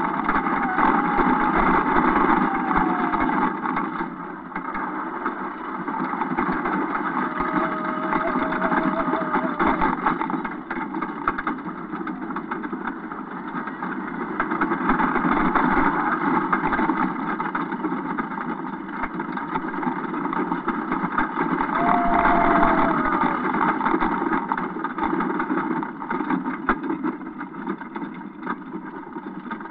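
Wooden roller coaster train running along its track, heard from on board: a continuous rattling rumble mixed with wind, swelling and easing several times through the ride. A few brief whining tones rise out of it, about a second in, around eight seconds in, and again around twenty-two seconds in.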